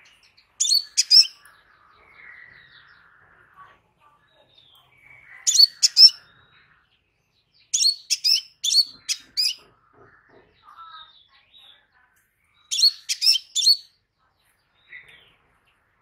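Crimson sunbird calling: four bursts of sharp, high chirps a few seconds apart, each a quick run of three to six notes.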